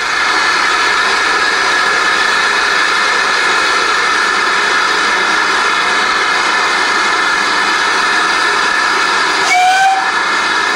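Steam hissing loudly and steadily from a standing GWR Manor-class 4-6-0, No. 7822 Foxcote Manor. Near the end a brief whistle-like note sounds over the hiss, rising slightly in pitch.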